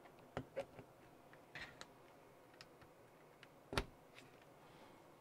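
Light, scattered clicks and taps of hands handling wires and plastic connectors on an RC car chassis while hooking up a brushless motor's wires. The sharpest click comes near the four-second mark.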